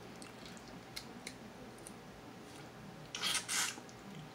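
Crab eating by hand: faint clicks and cracks of crab shell being broken and picked apart, with two short noisy bursts a little after three seconds in.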